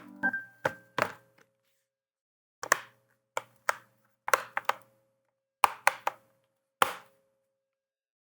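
Plastic clips of a Chromebook's bottom cover snapping into the palmrest as the cover is pressed down around its edge: about a dozen sharp snaps at uneven intervals, some in quick pairs or threes.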